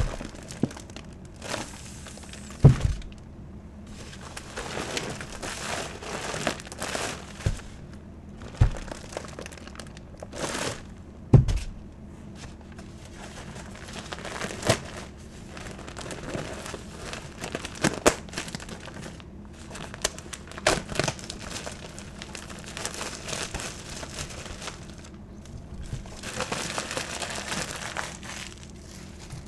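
Plastic shrink-wrap crinkling and tearing in repeated bursts as a stack of new sponges is squeezed and unwrapped by hand, with a few dull thumps.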